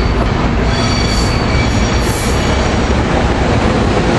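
SEPTA Silverliner IV electric railcars rolling past close by as the train pulls into the station: a loud, steady rumble of wheels on rail, with a faint high wheel squeal in the first couple of seconds.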